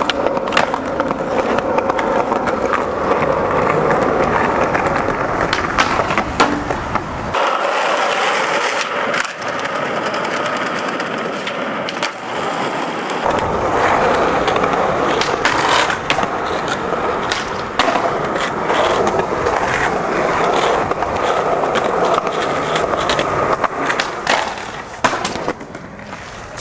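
Skateboard wheels rolling over concrete, with sharp clacks as the tail pops and the board lands. The deep rumble drops away for about six seconds a third of the way in, then returns.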